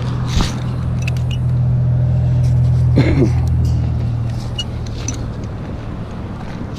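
A motor vehicle's engine running close by, its low hum swelling to a peak about three seconds in and then easing off.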